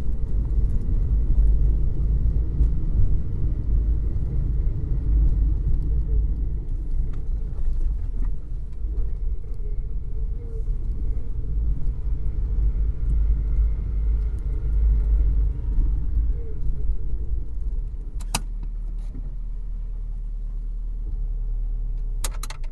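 Car engine running, heard from inside the cabin as a deep low rumble that rises and falls. About 18 seconds in a sharp click sounds and the rumble settles to a steadier, lower level, with a few more sharp clicks near the end.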